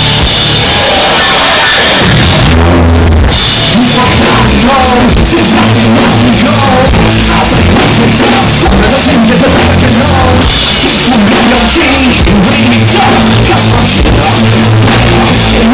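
Live rock band playing loud: drum kit, electric guitar and bass under a singer's vocals.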